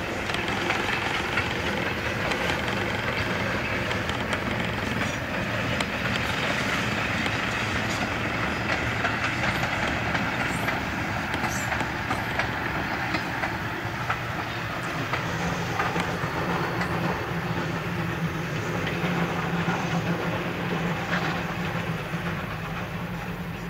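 Heritage steam train hauled by the OKz32 tank locomotive running along the line, a steady rumble of wheels on the rails, growing a little fainter near the end as the train draws away.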